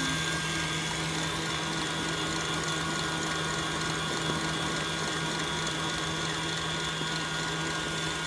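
KitchenAid Classic Plus stand mixer running steadily on its highest speed, the wire whip beating chilled shea and mango butter into whipped body butter in a stainless steel bowl. An even motor hum with a steady whine above it.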